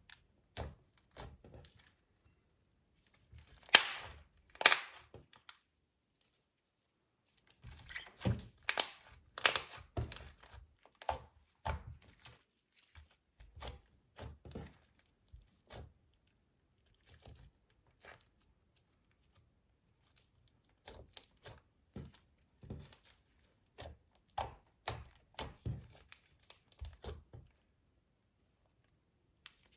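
Slime being squeezed and stretched by hand, making irregular crackles and pops in bunches, the loudest about four seconds in, with short pauses between.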